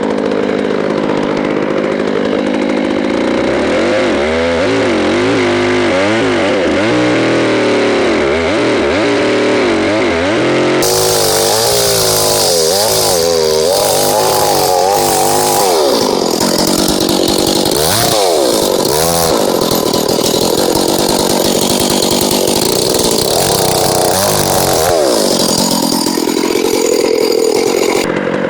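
Stihl MS660 two-stroke chainsaw with a rip chain on a four-foot bar, ripping a log lengthwise: the engine runs under load throughout, its pitch sagging and recovering as the chain bites into the cut. The sound changes abruptly twice.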